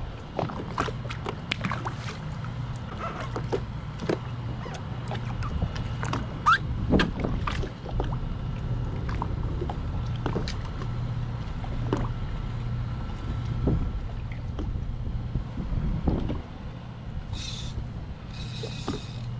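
Small choppy waves lapping and slapping against a jet ski's hull, in many short irregular splashes over a steady low hum.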